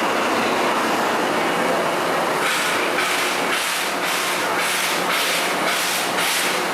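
Steam locomotive hissing steadily; about two and a half seconds in, a rhythmic hissing begins and keeps on at about two pulses a second.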